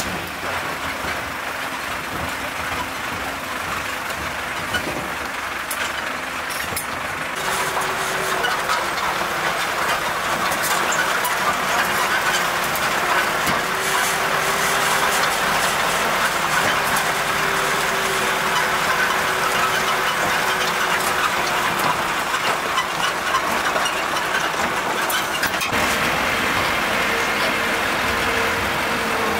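Farm tractor's diesel engine running steadily as it drives along a dirt track, a rough, even drone that steps louder about a quarter of the way in.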